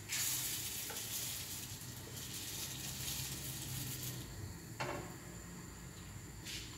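Potato pancakes frying in hot oil in a frying pan: a loud sizzle starts suddenly and runs for about four seconds before dying down. A short knock of a utensil against the pan comes about five seconds in, and a brief sizzle follows near the end.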